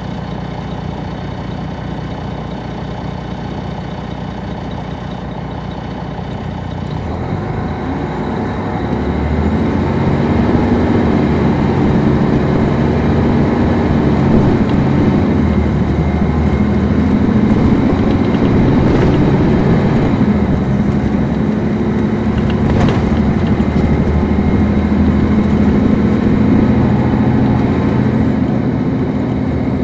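Detroit Diesel Series 60 engine of a 2002 MCI D4500 coach, heard on board, idling steadily, then pulling away about seven seconds in. The engine grows louder, its pitch climbing and dropping back several times as the Allison automatic transmission upshifts, with a faint high whine over it.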